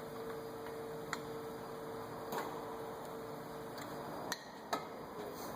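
Four short, sharp metallic clinks of hand tools against the front brake caliper and pads, over a faint steady hum that stops about two-thirds of the way through.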